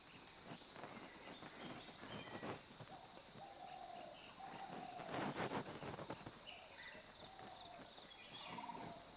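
Birds calling over a steady, high-pitched pulsing insect trill, with a louder harsh sound about five seconds in.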